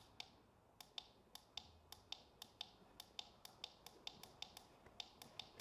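Faint, sharp clicks of the sunrise alarm clock's plastic hour-setting button being pressed over and over, about four clicks a second, as the hour steps down.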